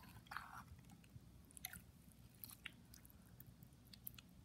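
Faint wet squelching with scattered small clicks as a metal spoon stirs and lifts freshly made glue-and-borax slime in a glass bowl.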